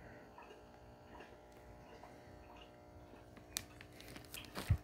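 A zip-top plastic bag being handled: faint at first, then a few sharp crinkles and clicks from about three and a half seconds in, loudest just before the end.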